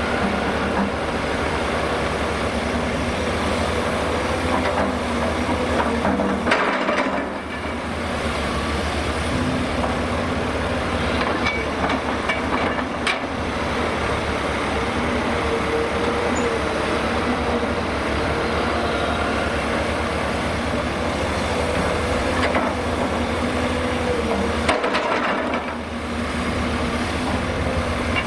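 Heavy diesel engine of a Hyundai Robex 300LC-9S crawler excavator running steadily under load while it works, with a few short knocks and clunks from the digging and loading.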